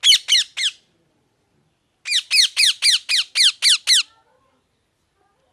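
A parrot calling in short, harsh notes that each slide down in pitch: a quick burst of three, then after a pause of about a second an even run of about eight.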